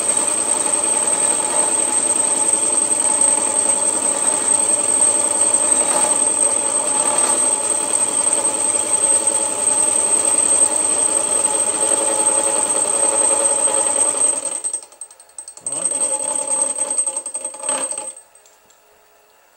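Milling machine running with an involute gear cutter taking a half-depth cut across a gear blank, a steady motor whine under the cutting noise. About 15 seconds in it drops out, starts again with a rising hum, then shuts off about 18 seconds in.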